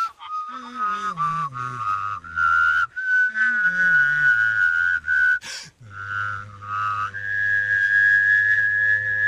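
A person whistling a melody while voicing a second, lower line at the same time. The low voice steps down in pitch under the whistled tune several times. For the last few seconds a held whistled note sounds over a steady low voice drone.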